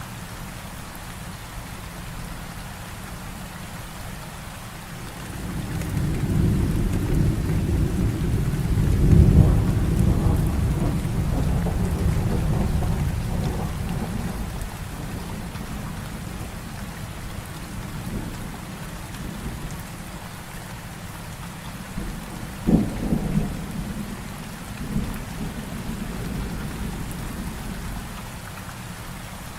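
Heavy rain falling steadily through a thunderstorm. A long rolling rumble of thunder builds from about five seconds in, peaks around nine seconds and dies away; later comes a sudden sharp thunderclap, followed a couple of seconds on by a smaller one.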